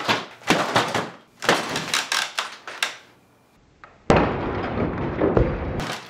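Repeated hard kicks against a wooden exterior door held by a latch-over security lock mounted on the frame: heavy thuds with the door and frame rattling, about one a second. These are the kicks under which the latch bends out of the way. Near the end there is a duller, steadier noise lasting under two seconds that cuts off suddenly.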